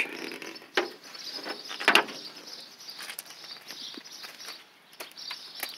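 A few scattered clicks and knocks over a quiet outdoor background, the loudest about two seconds in.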